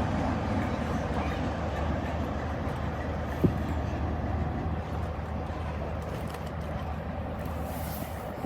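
Diesel locomotive engine running with a steady low rumble, with a single short knock about three and a half seconds in.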